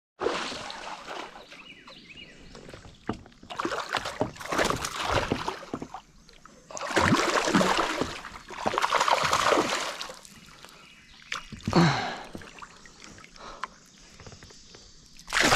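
A hooked largemouth bass splashing and thrashing at the surface while it is reeled in beside a kayak. The splashing comes in several separate bursts, with quieter water between them.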